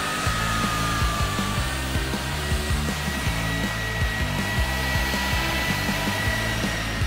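Electric rotary car polisher running with a wool pad on sanded paint: a steady motor whine whose pitch jumps higher about two seconds in. Background music with a bass line and beat plays under it.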